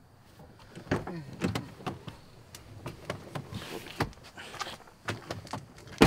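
Pickup truck door being unlatched and opened, with clicks and knocks as someone climbs out, then slammed shut with one loud bang near the end.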